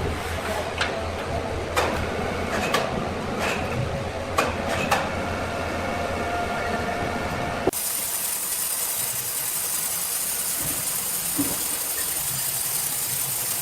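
Sawmill machinery running with a steady low hum and several sharp clanks and knocks. About seven seconds in it cuts abruptly to a steady high hiss.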